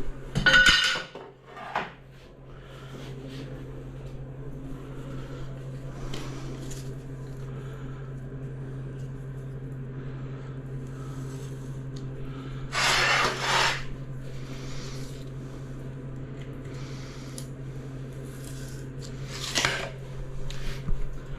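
Ceramic tile and tools being handled, with scraping and clattering under a steady low hum. There are three short, louder clatters: just after the start, about halfway through, and near the end.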